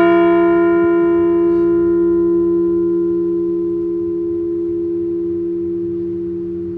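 A Liberty Bell replica ringing on after a single strike, tolled once for a deceased veteran. Its strong low hum note holds while the higher overtones die away first, and the whole ring fades slowly.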